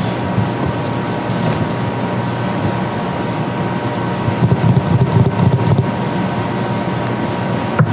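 Steady low rumble of room noise with a faint constant high whine, and a run of light clicking and rustling about halfway through.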